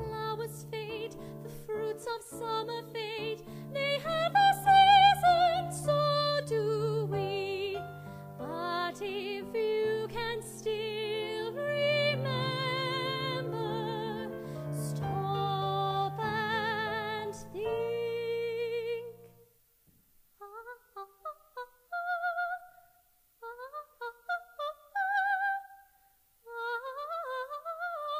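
A woman singing in a classical, operatic style with strong vibrato over sustained chords from a keyboard accompaniment. About two-thirds of the way through the accompaniment stops, and she goes on alone in short unaccompanied phrases separated by brief silences.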